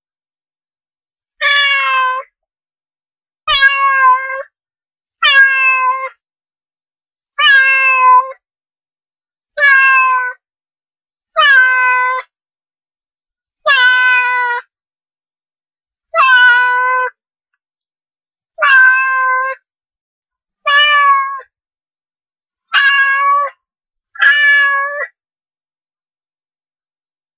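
Domestic cat meowing, twelve short meows about two seconds apart, with dead silence between them.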